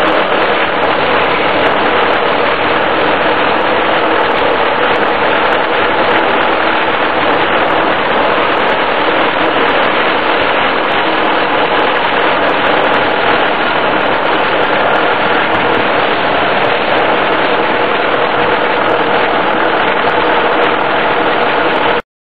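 1951 Farmall M's four-cylinder gasoline engine running steadily with a rapid exhaust beat, then cut off abruptly near the end.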